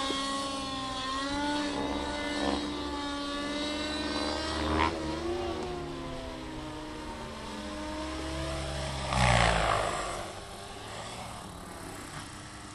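Miniature Aircraft Fury 55 RC helicopter in flight, its OS 50 two-stroke glow engine with Hatori muffler and rotors making a steady whining drone whose pitch wavers up and down. About nine seconds in there is a brief, loud rush of noise.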